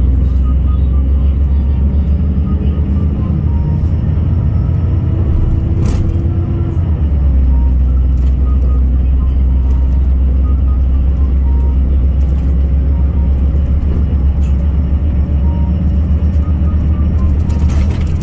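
SKSBus SA12-300 city bus heard from inside the passenger cabin while driving: a steady low engine and road drone. The engine note shifts and settles lower about seven seconds in, with a brief click just before.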